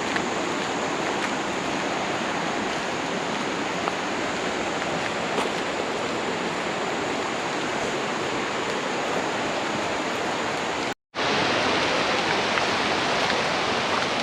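Steady rush of a waterfall, water cascading over boulders. It drops out for a split second about eleven seconds in and comes back a little louder.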